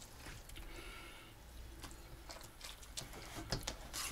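Light, scattered taps and clicks of kitchen utensils and dishes being handled.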